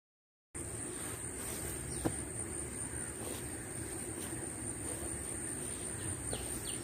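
Riverside ambience after a brief moment of silence: a steady high insect whine over a soft background rush, and near the end a bird calling in a quick series of short falling notes.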